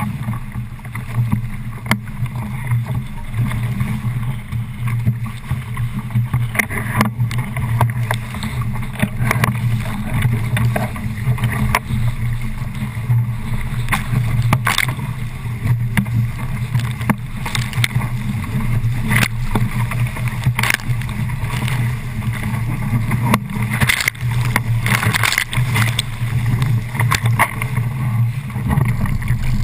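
Small sailing catamaran under way: a steady low rumble of wind and water rushing past the hull, broken by frequent irregular splashes and slaps of water against the boat.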